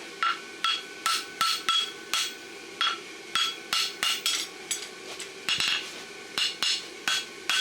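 Hand hammer striking a hot steel horseshoe on an anvil in a steady rhythm of about two to three blows a second, each blow with a short metallic ring, as the farrier flattens the steel behind a forged toe clip.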